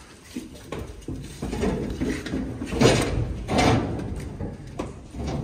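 Metal clanks and bangs of a cattle crate as a Holstein cow is walked into it: a run of knocks, the two loudest about halfway through.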